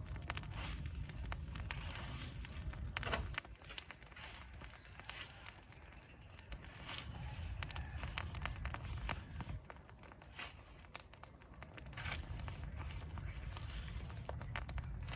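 Straw and dry leaves burning in an open fire, crackling with irregular sharp pops; a denser burst of crackles comes about three seconds in. A low rumble of breeze runs underneath.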